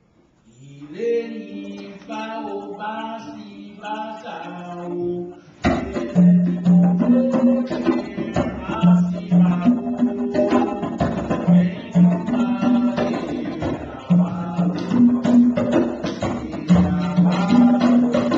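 A man's voice sings alone for the opening few seconds. About five and a half seconds in, a live band comes in loudly with congas, drum kit and cymbals, playing a steady groove.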